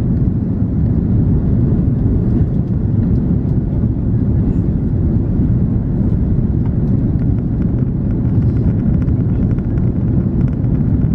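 Steady cabin noise inside an Airbus A340-300 on approach with flaps extended: a low, even rumble of airflow and the CFM56 engines.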